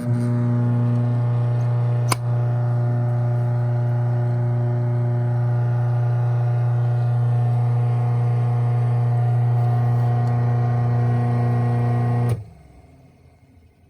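Craftsman 1/2 hp chain-drive garage door opener (model 139.53930DM) running as it closes the door: a steady motor hum with a single click about two seconds in, cutting off suddenly about twelve seconds in when the door finishes closing.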